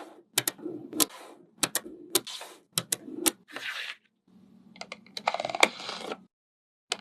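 Hands handling DIY craft materials: sharp clicks and taps, often in quick pairs, each followed by a short rustle or scrape. About four seconds in they give way to a couple of seconds of rattling.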